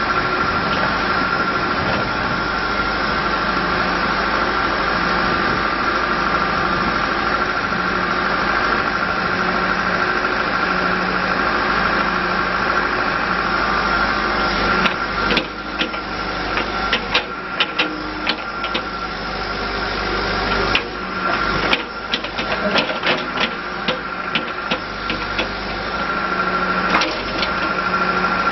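John Deere 310SG backhoe loader's diesel engine running steadily, with a steady high whine over it. From about halfway a series of sharp clicks and knocks joins it.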